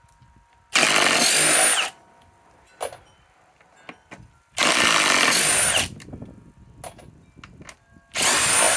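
Compact cordless impact wrench hammering out lag screws in three bursts of about a second each, with short pauses between them.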